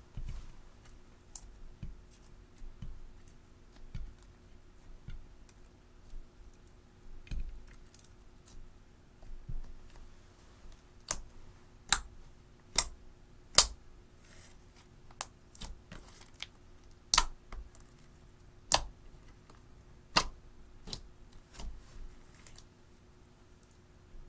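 Slime being squeezed and stretched by hand, making sharp, irregular clicks and pops that grow louder and more frequent about halfway through.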